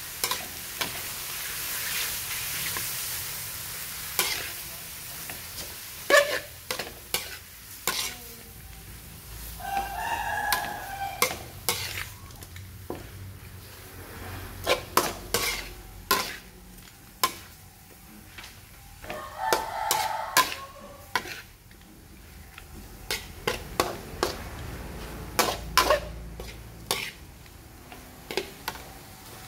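Metal spatula scraping and clinking against a wok while squid and chilies are stir-fried, with the food sizzling in the hot oil, most strongly in the first few seconds.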